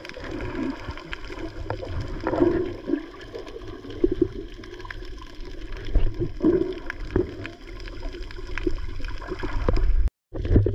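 Water heard underwater through a camera's housing: muffled sloshing and gurgling with scattered knocks. The sound cuts out for a moment near the end.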